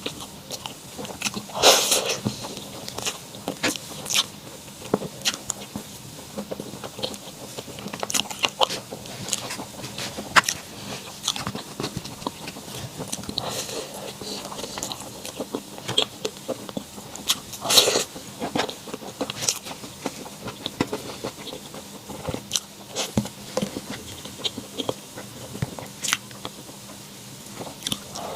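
Close-up eating sounds: irregular crunchy bites and wet chewing clicks, with two louder crunches, one near the start and one about two-thirds of the way through.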